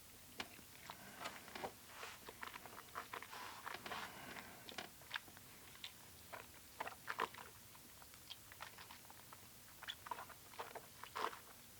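Faint mouth sounds of someone tasting whisky: the spirit sipped and worked around the mouth, with a run of small wet clicks and lip smacks.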